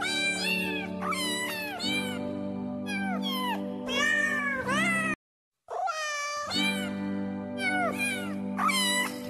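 Domestic cat meowing over and over, short meows one after another, over steady background music. Everything cuts out for about half a second a little after five seconds in, then the meows and music resume.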